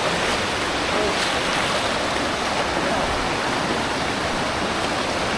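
Steady rushing of water from a waterfall and the stream below it, unbroken and even.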